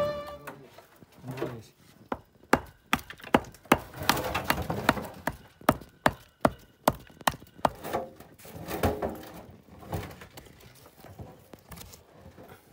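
Stone being chipped and shaped with a mason's hammer: a quick, irregular run of sharp knocks, about two a second, which thins out to fewer, softer knocks in the last few seconds.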